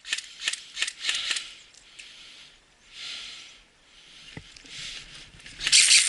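Rustling with scattered sharp clicks, coming in three bursts: at the start, around the middle and near the end.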